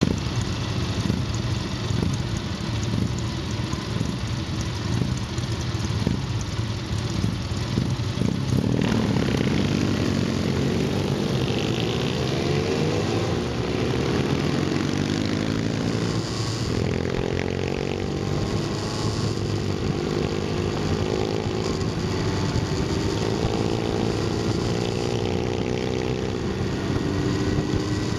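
Motorcycle engines idling with an even pulse, then pulling away about nine seconds in and accelerating through the gears, the pitch rising and dropping at each shift before settling into steady running.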